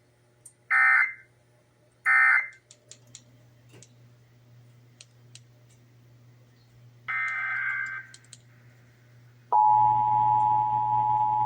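Emergency Alert System digital data bursts: two short warbling bursts about a second and a half apart, ending the previous test, then a longer burst about seven seconds in. About nine and a half seconds in, the steady two-tone EAS attention signal starts and holds loudly.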